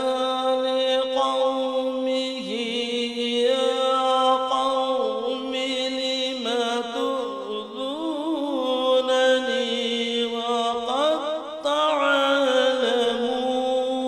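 A man reciting the Quran in melodic tajweed style through a microphone, holding long notes and ornamenting them with wavering runs, a new rising phrase starting near the end.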